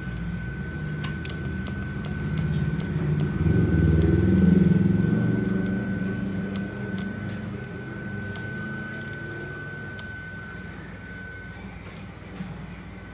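A low mechanical rumble that swells to a peak about four seconds in and then fades, under a steady high whine that stops near the end, with scattered sharp clicks.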